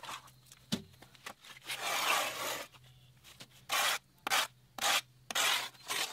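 A shovel scraping packed mud out of the rubber tracks of a John Deere 325G compact track loader: one long scrape about two seconds in, then four shorter strokes in quick succession.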